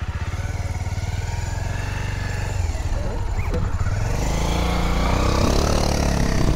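Motorcycle engine idling with a steady low pulse. About four seconds in, a second motorcycle close alongside revs up and pulls away, its engine rising in pitch and getting louder.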